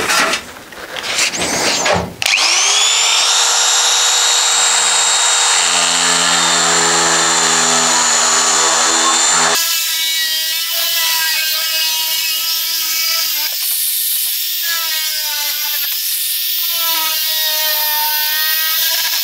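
Handheld electric sheet metal shear: its motor starts about two seconds in with a rising whine and runs steady. From about halfway it cuts through sheet steel, its pitch wavering and dipping under the load.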